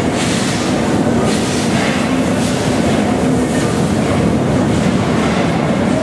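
LMS Royal Scot class 4-6-0 steam locomotive 46115 Scots Guardsman rolling slowly past with its train, a steady sound of wheels running on the rails.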